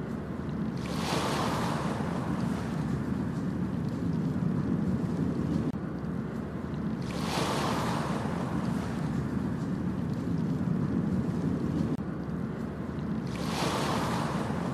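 Ocean waves breaking and washing up on a beach: three hissing surges about six seconds apart over a steady low rumble of surf.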